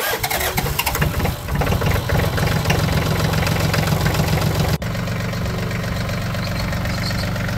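Branson compact tractor's diesel engine running just after a cold start, left to idle and warm up. It runs a little unevenly at first and is steadier after an abrupt change about five seconds in.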